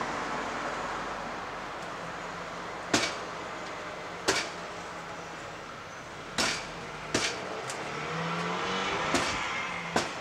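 Irregular sharp knocks, about half a dozen, of a firefighter's hand tool striking the fire-damaged wooden deck, over a steady engine hum.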